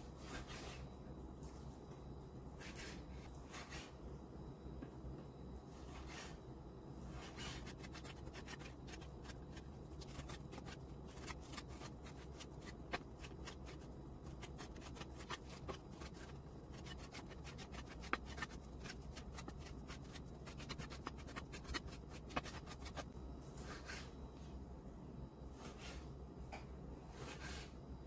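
Chef's knife slicing raw pork shoulder into cubes on a wooden cutting board: soft slicing strokes through the meat and many irregular light taps of the blade on the board.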